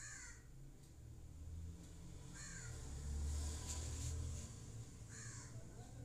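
A crow cawing three times, about two and a half seconds apart, over a low rumble that swells in the middle.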